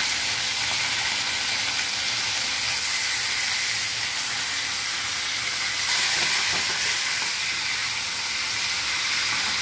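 Marinated chicken pieces sizzling as they go into hot oil in a kadai to shallow-fry: a steady frying hiss, swelling a little about six seconds in.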